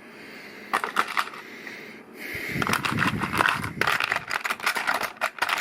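Loose plastic LEGO Technic pieces clattering and clicking as hands rummage through them. A few clicks about a second in, then a busier run of rattling from about halfway through.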